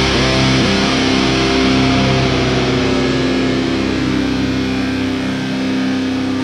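Heavy metal music with electric guitar, playing sustained chords. The low bass drops away near the end.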